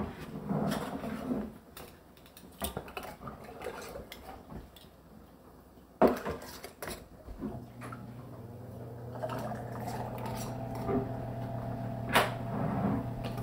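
Kitchen clatter of a metal ladle in an enamel stockpot and glass canning jars being filled and moved on the counter, with scattered knocks and clinks, the loudest about six seconds in. A steady low hum sets in about halfway through.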